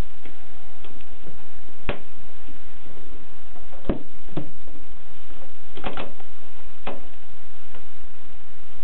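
Groma Kolibri portable typewriter clicking and knocking: a handful of separate sharp mechanical clicks a second or two apart, not steady typing, over a steady hiss.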